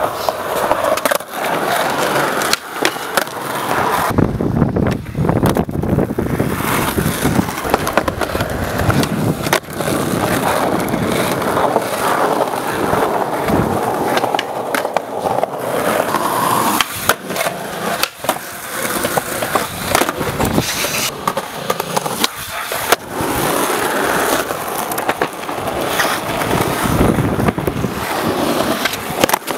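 Skateboard wheels rolling on concrete and pavement, broken by sharp clacks of the tail popping and the board landing, over several tries.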